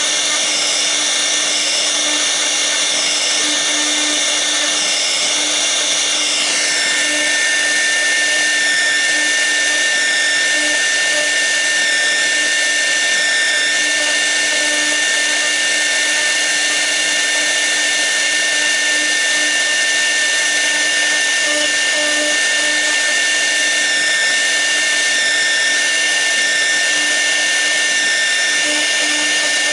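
A CNC router's 6 kW air-cooled spindle running at speed while a V-bit carves the workpiece: a steady high whine. About six seconds in the pitch shifts and a sharp steady tone sets in and holds.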